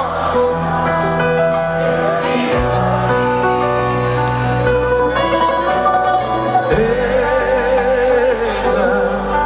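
Live band music played loud through a concert PA, a Greek pop song with guitar. Sustained bass notes change twice, under melodic lines.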